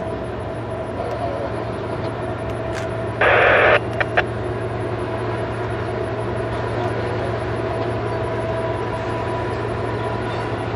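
Railroad scanner radio giving a short, loud burst of static about three seconds in, followed by two sharp clicks, the squelch noise of a transmission keying off, over a steady low hum and background noise.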